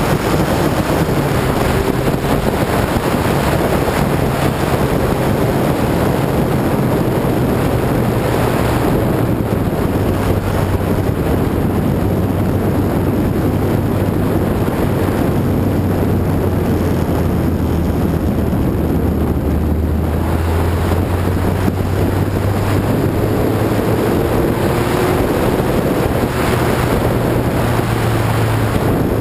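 Lotus 61 Formula Ford's four-cylinder engine running hard at racing speed under heavy wind noise. Its pitch drops about nine seconds in, holds lower for most of the stretch, and climbs again near the end.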